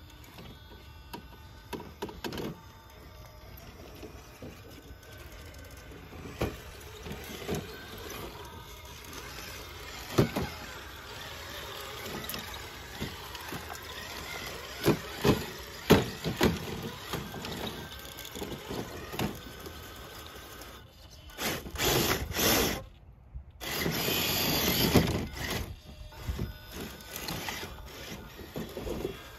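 A Traxxas TRX4 Bronco RC crawler with a brushless motor working its way over rocks: irregular knocks and clatters of its tyres and chassis on stone. A few seconds of louder rushing noise come about two-thirds in.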